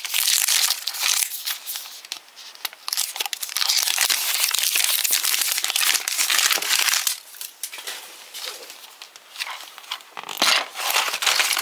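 Plastic film crinkling and tearing as the seal is peeled off a plastic toy surprise capsule, in bouts with quieter pauses and a louder crackle near the end.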